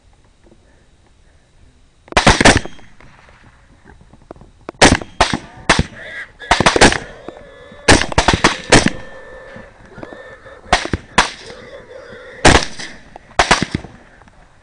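Rifle shots at feral hogs: about twenty shots fired quickly in strings of two to four, beginning about two seconds in, with short pauses between the strings.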